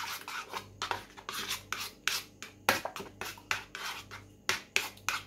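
Fingers rubbing and mixing a dry powdered mixture in a bowl, a quick, irregular run of gritty, scratchy strokes, several a second.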